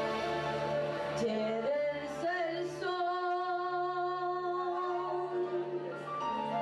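Sung worship music: a voice sings slow, drawn-out notes over a held instrumental chord, holding one long note for about two seconds in the middle.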